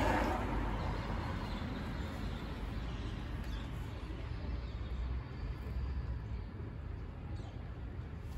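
Steady low rumble of distant road traffic, with a louder noisy swell fading out in the first half second and a couple of faint high chirps from birds.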